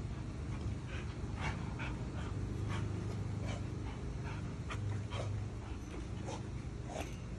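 Boxer dog panting, short breaths coming about twice a second, over a low steady hum.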